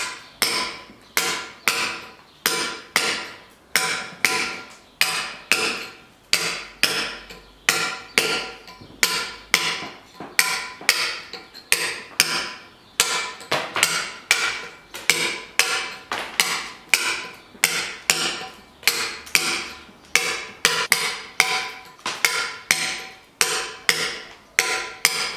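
Hand hammer striking a steel point chisel into a block of natural stone, a steady run of sharp blows at about two a second, each with a brief metallic ring.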